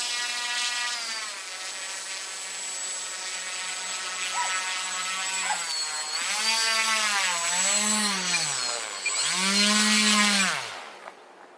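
Small electric motor of a K'nex remote-control ski vehicle whining as it drives, its pitch rising and falling three times in the second half, then cutting off about a second before the end.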